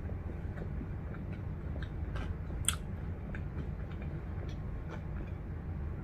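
A person chewing a mouthful of food, with scattered small wet mouth clicks and one sharper click about two and a half seconds in, over low steady background noise.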